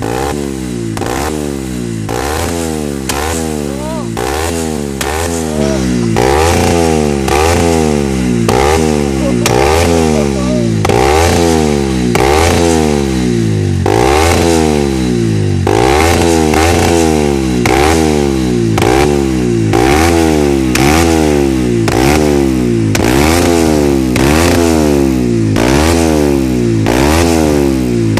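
Kymco Quannon single-cylinder four-stroke motorcycle engine with an aftermarket GPR exhaust, revved over and over, about once a second, each rev rising and dropping back. Sharp pops and crackles come from the exhaust as the revs fall: backfiring that throws flames from the exhaust.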